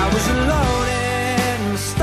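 Pop song playing, with a sung melody over a band.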